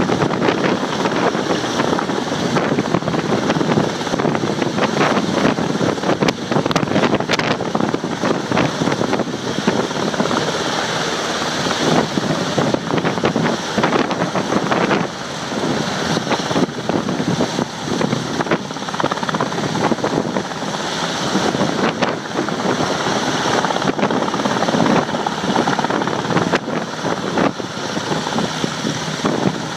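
UH-60 Black Hawk helicopter, with its twin turboshaft engines, hovering and slowly descending toward a landing spot close by: loud, steady rotor and turbine noise.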